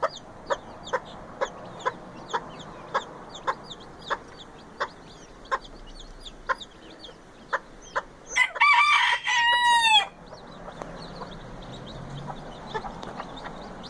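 Bantam chickens clucking in short, evenly spaced notes, about two a second. About eight seconds in, a bantam rooster crows once, the loudest sound, lasting under two seconds.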